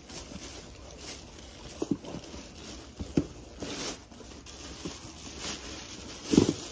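Gift packaging being opened by hand: scattered short rustles, scrapes and soft knocks, the loudest a dull thump near the end.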